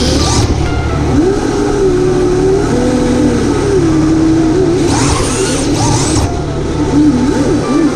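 Electric motor of a radio-controlled drift car whining, its pitch rising and falling smoothly with the throttle. A short rush of high hiss comes near the start and again about five seconds in.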